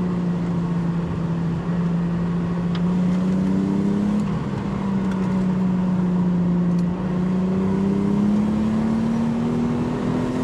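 Nissan Skyline GT-T's turbocharged 2.5-litre RB25 Neo inline-six running under way with the window open, over road and wind noise. Its pitch climbs slowly, drops about four seconds in, then rises again through the second half.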